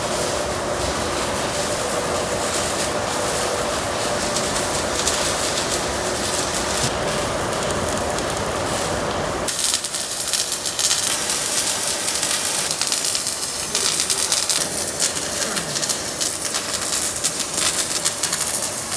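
Machinery of a robotic welding production line running steadily with a faint hum. About halfway through the sound changes abruptly to a brighter hiss with dense crackling.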